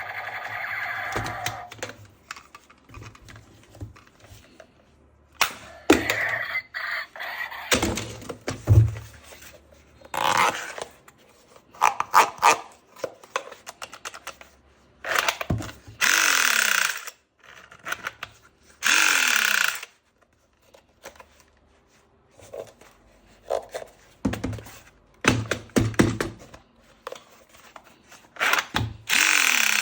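Plastic toy gun parts and packaging being handled: irregular clicks and knocks, with several short rustling or scraping bursts of about a second each.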